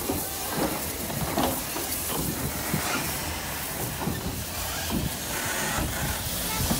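WD Austerity 2-10-0 steam locomotive moving slowly, with a steady hiss of steam and soft exhaust beats about once a second.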